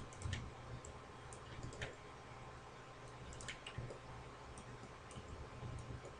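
Faint, scattered clicks of a computer mouse and keyboard, a handful over several seconds, over a low steady hum.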